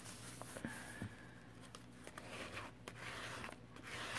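Paper sliding and rustling under the hands on a tabletop, with a couple of soft taps about a second in.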